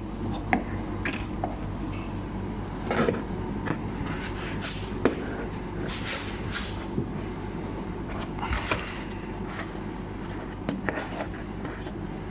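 Plastic wheel-arch liner clips and trim being worked with pliers and by hand: scattered clicks, knocks and scrapes of plastic over a steady low hum.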